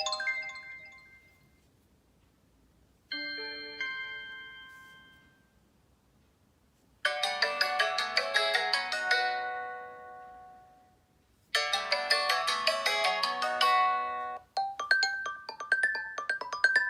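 Xiaomi Redmi Note 4 stock notification tones and ringtones played one after another. First come two short chimes that ring out and fade, one at the start and one about three seconds in. Then two busier chiming melodies follow, and a quick rhythmic ringtone begins near the end.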